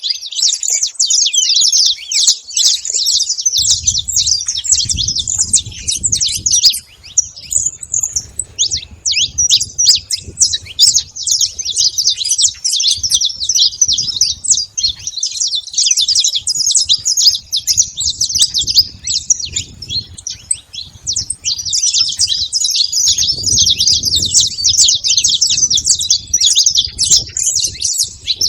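A flock of saffron finches chirping and calling all at once, a dense, continuous chatter of many birds, with patches of faint low rumble underneath.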